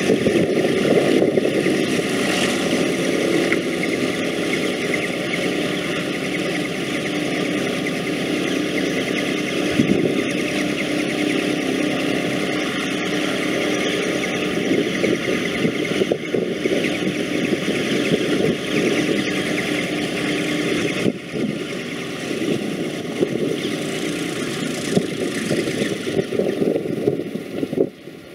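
B-25 Mitchell bombers' Wright R-2600 radial engines idling on the ground, a steady rough running that eases a little about three-quarters of the way through.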